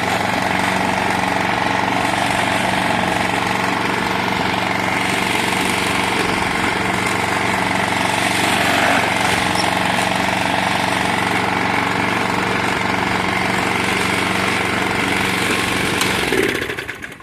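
Klippo Pro 21S lawn mower's petrol engine running steadily, then dying out shortly before the end once the safety bar on the handle is let go.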